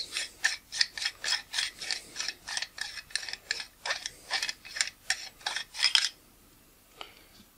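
Nikkor 50mm f/1.4 AI-s lens barrel parts rubbing and scraping as they are rotated back and forth by hand: short rasping strokes, about three or four a second. The strokes stop about six seconds in, followed by one faint click.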